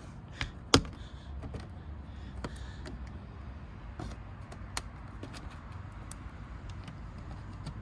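Plastic push clips and trim being handled and pressed into the front end of a Mazda CX-3: one sharp click about a second in, then scattered lighter clicks and taps over a steady low rumble.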